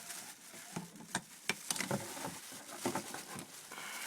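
Irregular light clicks and rustling from small tools and parts being handled, with no motor running.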